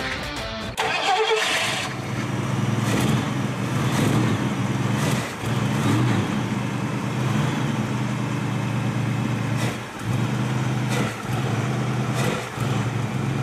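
1967 Ford Mustang engine catching about a second in, then idling steadily, its sound dipping briefly a few times.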